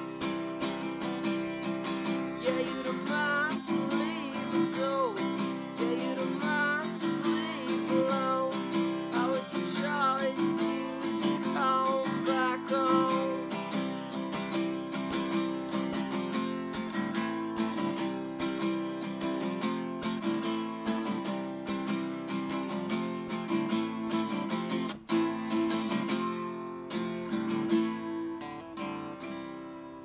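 Acoustic guitar strummed in steady chords as a song's ending, with a wordless vocal line over it for roughly the first dozen seconds. Near the end the strumming stops and the last chord rings out and fades.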